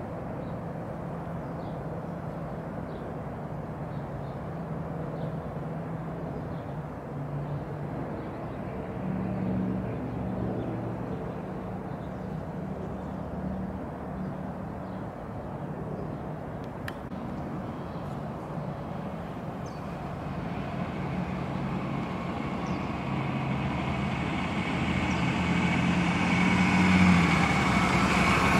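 A motor vehicle's engine running with a steady low hum, growing louder over the last several seconds.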